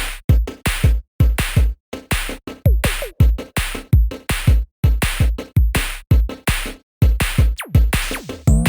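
Electronic drum-machine beat: deep kick drums that drop in pitch, with snare and hi-hat hits in a steady rhythm, and a rising sweep near the end.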